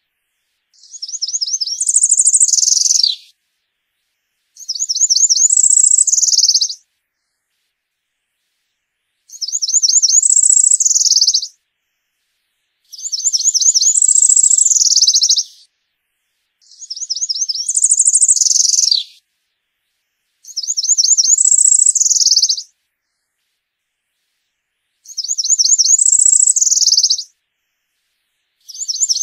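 A New World wood-warbler (Setophaga) singing, its song repeated about every three to four seconds, roughly eight times. Each high-pitched song is a quick run of repeated buzzy notes rising into a higher buzz, some ending in a short falling slur.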